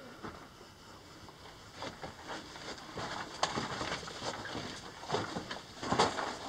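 Footsteps crunching on loose rock and gravel, a string of uneven steps that grows louder in the second half.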